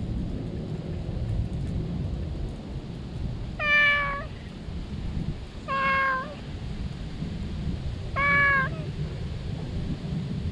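Orange-and-white stray cat meowing loudly three times while being stroked, each meow about half a second long and dropping in pitch at the end, about two seconds apart, over a steady low rumble.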